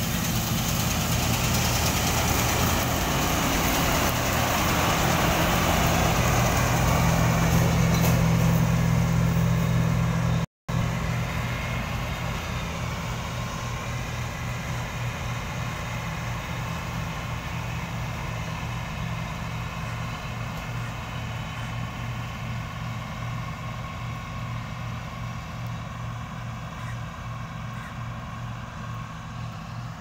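Combine harvester running while cutting wheat: a steady engine drone under a noisy hum of machinery, growing louder as it comes closer. After a brief dropout about ten seconds in, it carries on and slowly fades.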